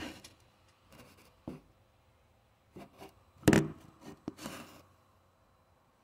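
Handling noise as a phone is moved and propped up: scattered rubs and knocks at no steady rhythm, the loudest knock about three and a half seconds in.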